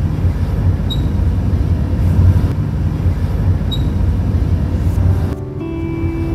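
Steady low rumble of a moving car heard from inside the cabin: engine and tyres on a wet road. Background music comes in near the end.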